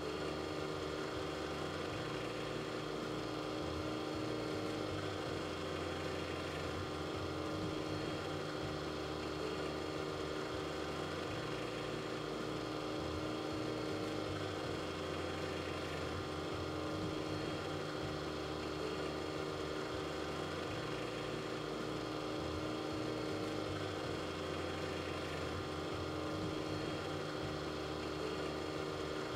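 A 1:10 scale model of a Burckhardt Compression reciprocating compressor running, giving a steady mechanical hum with several held tones.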